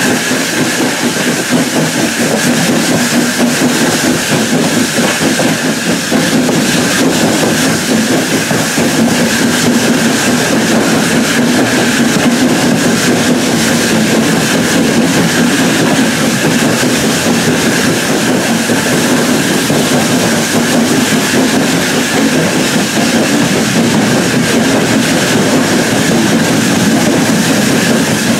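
Steam-hauled passenger train running along the line, heard from a carriage window: a loud, steady noise of the carriage wheels on the track that does not let up.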